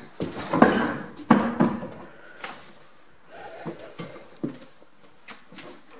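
A series of irregular knocks and scuffs, loudest in the first couple of seconds, as an interior door is pushed open by hand.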